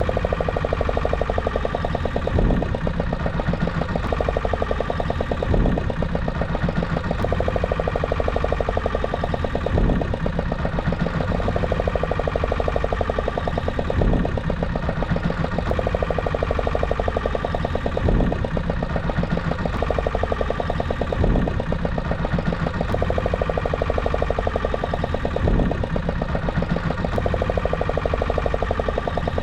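Fishing boat's engine running steadily with a fast even pulse, and a dull thump every three to four seconds.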